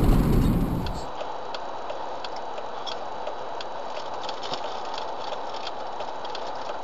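Ambience of a stopped car picked up by a low-quality dashcam microphone: a steady hiss with scattered faint ticks. A louder sound cuts off about a second in, where the footage changes to the dashcam clip.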